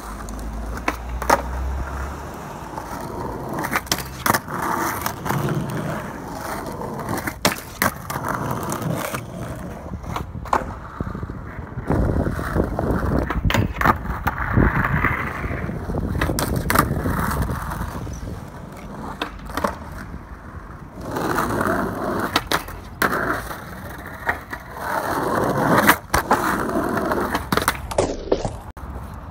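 Skateboard wheels rolling on rough asphalt, with repeated sharp tail pops and landing slaps, and stretches of the board grinding along a low flatbar during frontside noseslide attempts.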